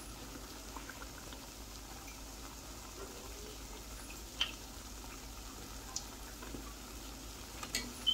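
Bara fritters deep-frying in a pot of hot oil: a steady soft sizzle and bubbling, with a few sharper crackles, the loudest about halfway through and near the end.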